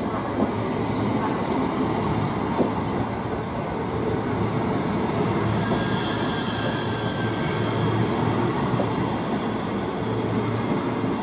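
ScotRail Class 385 electric multiple unit moving along the platform: a steady rumble of wheels on rail, with a faint thin high whine around the middle.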